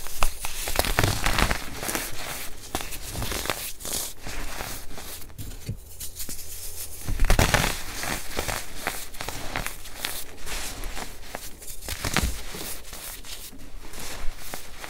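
Hands crushing and crumbling clumped baking soda: a continuous run of dry crunches and crackles, with louder crunches just after the start and about seven seconds in.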